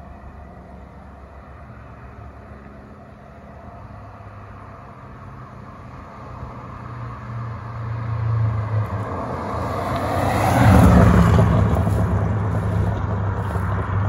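BMW E39 540i's 4.4-litre V8 with hollowed-out catalytic converters driving past: a low exhaust note builds over several seconds, is loudest about eleven seconds in as the car goes by, then eases off a little.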